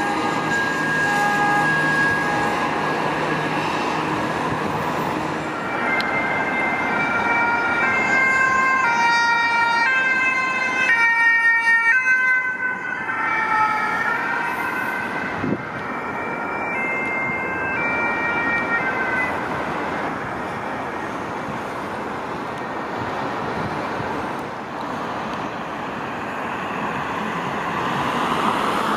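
Two-tone French 'pin-pon' siren of a fire brigade ambulance (VSAV), its two notes alternating as it approaches on the highway and passes, loudest about halfway through and fading after. Steady traffic noise runs under it.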